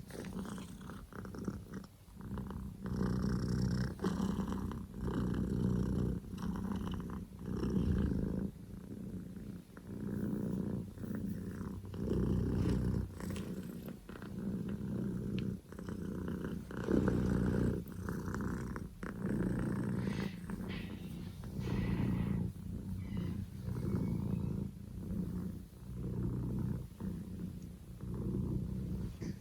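Scottish Fold kitten purring loudly, a low rumble that swells and eases with each breath, about one pulse every second or two.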